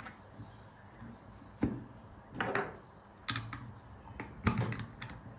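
Hands fitting a drill bit into a metal drill chuck: about four separate knocks, clicks and short scrapes of handling, with the drill's motor not running.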